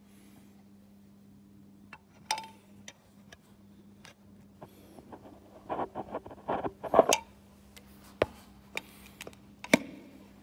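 Clicks, knocks and rubbing from a phone being handled close to its microphone, loudest in a cluster about seven seconds in, over a steady low hum.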